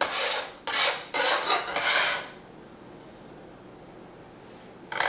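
Bench scraper scraping across a plastic cutting board in four or five quick strokes, gathering diced chilies off the board, then stopping after about two seconds.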